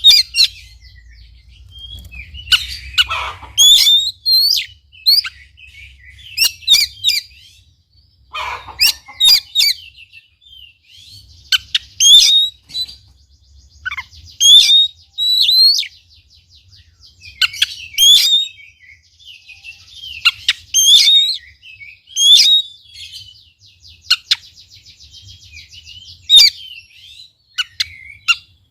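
Oriental magpie-robin singing: loud phrases of sharp, sweeping whistled chirps, repeated every second or two.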